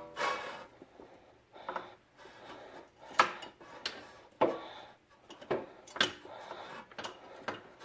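A metal wrench clinking and scraping on a brake line fitting as it is worked loose, a string of irregular sharp clicks and short scrapes.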